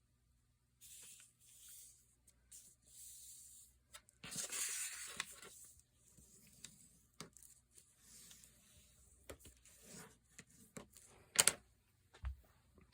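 Paper being handled: soft rustling and sliding swishes, a louder stretch of rustling about four seconds in, and a few sharp light clicks and taps.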